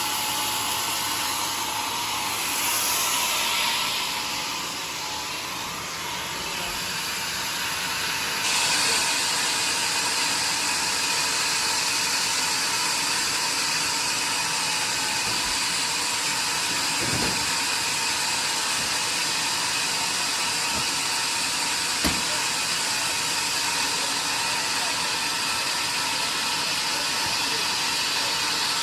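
Homemade sawmill running steadily as it cuts through a log, a continuous hissing machine noise that grows brighter and slightly louder about a third of the way in. A couple of brief knocks come past the middle.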